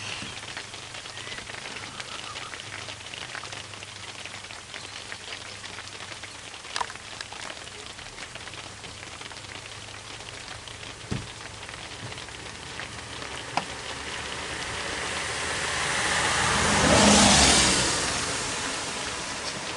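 A vehicle passes by, growing louder over a few seconds to a peak near the end, then fading. Under it runs a steady rain-like hiss with a few sharp clicks.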